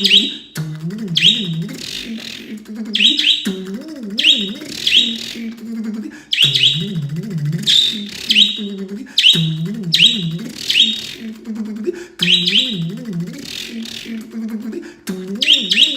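A man's voice imitating an engine cranking over without catching, a low wavering drone repeated about every three seconds. Each round comes with a pet bird's quick high chirps.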